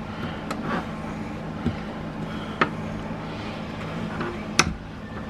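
A screwdriver tip prying at a stuck plastic door-panel clip, giving a few sharp clicks and scrapes, the loudest near the end, over a steady low hum.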